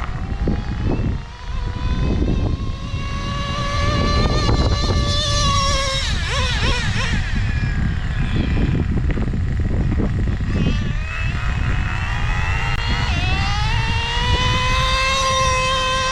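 Traxxas Slayer Pro 3.3's two-stroke nitro engine running at high revs, its pitch climbing twice as the truck accelerates, with a wavering stretch in between.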